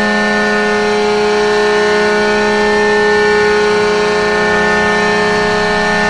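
Adirondack Thunder's ice-hockey goal horn blowing one long, loud, steady blast, several pitched tones sounding together as a chord.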